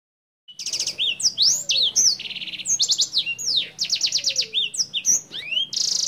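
Caged senger songbird singing a rapid, varied song of fast trills, rising and falling whistled slurs and buzzy notes, starting about half a second in. It sings in full, steady voice, as kept birds are recorded to serve as a song tutor for other birds.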